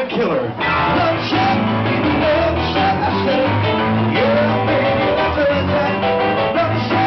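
Live rock music with a singer and full band, played loud through a club PA, starting about half a second in.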